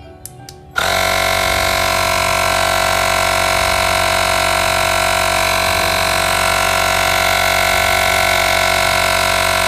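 Cordless mini air compressor (portable tyre inflator) switched on after two short clicks, then running steadily with a loud buzzing hum as it pumps up a flat car tyre. Its small-motor whine is the normal running noise for this kind of inflator.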